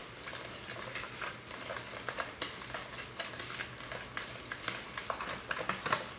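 Metal spoon stirring a wet mix of egg, oil and sugar in a plastic bowl: irregular quick scrapes and light clicks of the spoon against the bowl, with a few louder clicks near the end.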